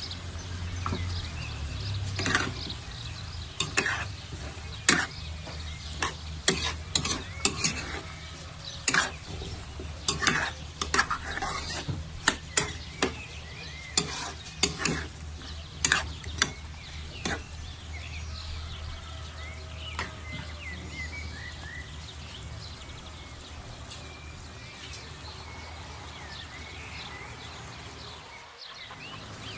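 A spatula stirring food in a cooking pan, knocking against it in sharp, irregular clinks that thin out about halfway through. Under them the food sizzles over a steady low hum.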